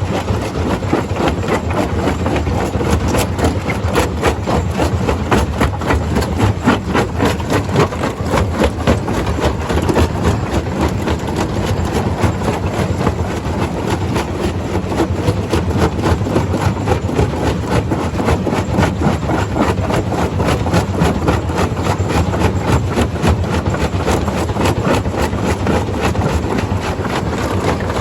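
Stone crusher running, a heavy engine drone with dense, irregular rattling and knocking throughout.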